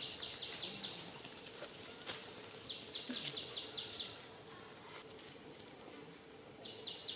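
An insect calling in the forest canopy: bursts of about nine rapid, evenly spaced high-pitched pulses lasting just over a second. The bursts repeat every three to four seconds over a steady faint background of forest noise.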